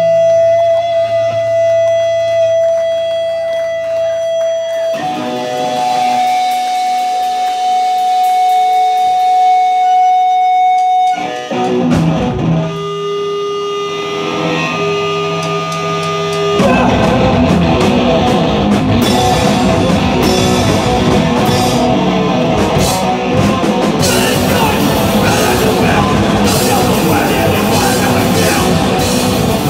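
Live punk band: an electric guitar holds steady, ringing distorted tones that shift pitch twice. About sixteen seconds in, the full band comes in loud with drums.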